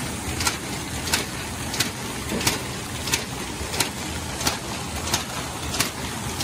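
330T automatic kraft paper bag making machine running: a steady mechanical din with a sharp clack repeating evenly, about every two-thirds of a second.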